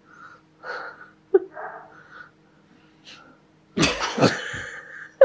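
A person breathing out in soft puffs, then coughing twice loudly near the end.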